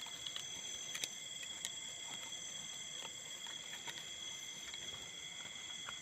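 Steady high-pitched chirring of night insects, several tones sounding together without a break, with a few faint clicks at about one and two seconds in.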